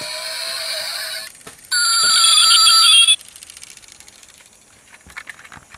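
Diecast model car's battery-powered sound module playing electronic ringing tones through its tiny speaker. A louder, warbling burst of tone starts at about a second and a half in and stops abruptly, followed by faint clicks.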